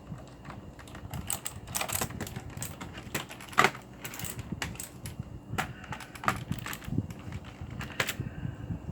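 Typing on a Cherry G80-3800 mechanical keyboard with clicky Cherry MX Blue switches: irregular keystrokes clicking at an uneven pace, with one louder strike about three and a half seconds in.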